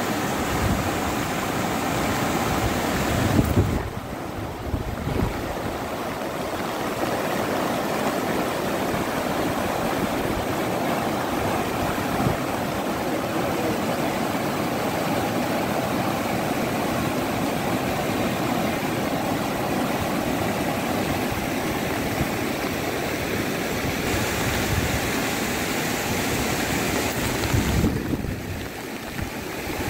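Steady rush of floodwater. Wind buffets the microphone briefly about three seconds in and again near the end.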